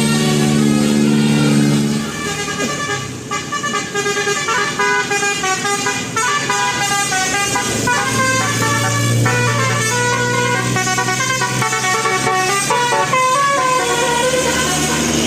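Bus 'telolet basuri' musical horn playing a quick melody of stepping notes, with a low steady tone under it at the start and again about eight seconds in.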